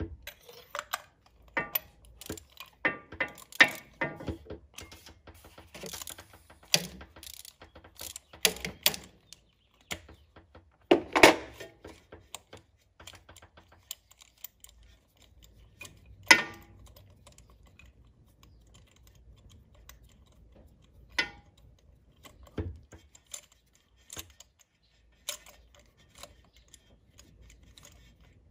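Ratchet with chained socket extensions clicking and clinking as a spark plug is loosened out of a deep plug well: short irregular runs of metallic clicks through the first several seconds, then only a few scattered knocks.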